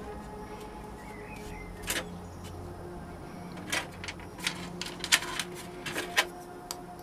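Sharp clicks and knocks of a two-part sand-casting flask being fitted together and set down on a metal tray: one knock about two seconds in, then a quick run of taps in the second half.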